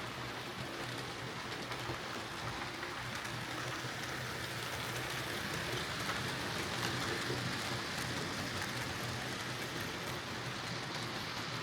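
Hornby Q6 OO gauge model steam locomotive running on track under its newly fitted motor: a steady motor hum under a continuous fine rattle of wheels on rail, growing a little louder around the middle.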